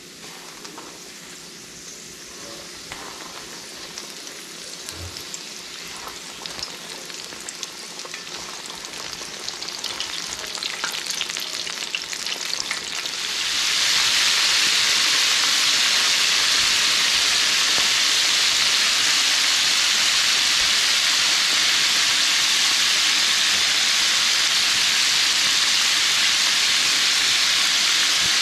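Flour-battered catfish deep-frying in hot corn oil in a cast-iron skillet, sizzling and crackling, at first a single test piece, the sizzle slowly growing louder. About halfway it jumps to a much louder, steady sizzle, with the skillet full of frying pieces.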